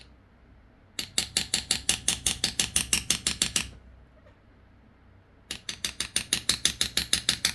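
Two runs of rapid, even metal-on-metal taps, about nine a second, each lasting two to three seconds, with a pause between. They fit a small hammer driving a sharp tool into the collapsed remains of a broken bolt stuck in the engine, to work it loose.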